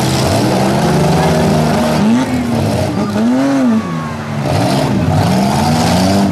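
Several six-cylinder demolition derby car engines revving up and dropping back again and again, overlapping, with one long rise and fall near the middle.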